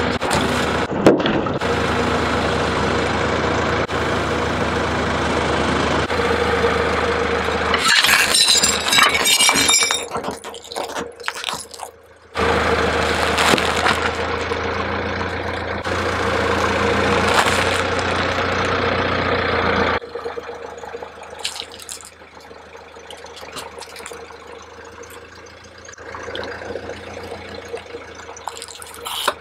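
Car engine idling as its tyre rolls over and crushes plastic-wrapped food packets. A burst of crackling crunches comes about eight seconds in. About two-thirds through the engine hum drops away, leaving a quieter stretch with scattered light clicks and crinkles.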